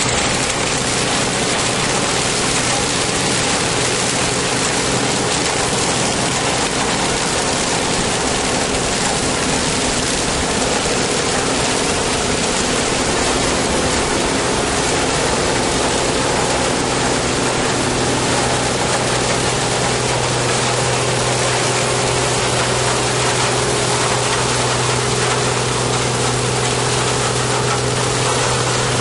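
Claas Dominator 204 combine harvester at work harvesting grain maize: its engine runs with a steady hum under a dense, unbroken rush of cutting and threshing noise. The low hum grows stronger about two-thirds of the way through.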